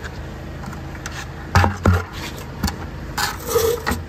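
An engine idling steadily, with a few sharp metal clunks about halfway through and a burst of rattling near the end.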